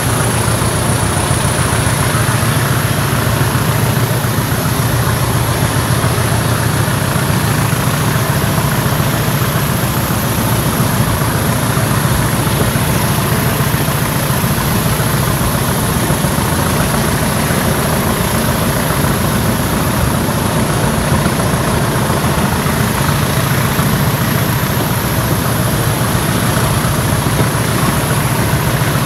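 Diesel-hauled heritage train running at steady speed, heard from an open carriage window: a constant diesel engine drone with wheel and rail noise. A thin high whine wavers over it.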